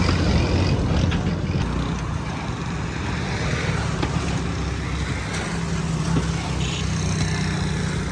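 Steady low rumble of a motor vehicle engine running, with a few faint clicks over it.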